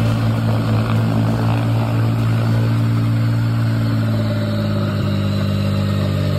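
Adept 3.2-litre turbocharged V6 aircraft engine running steadily at a low, even speed, turning the propeller.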